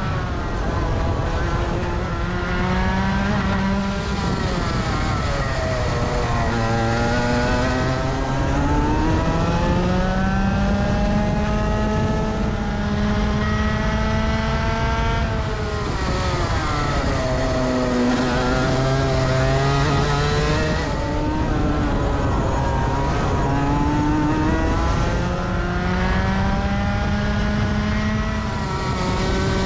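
Rotax Max 125cc two-stroke kart engine at full race pace, its revs climbing in long rising pulls and dropping back, again and again over the laps.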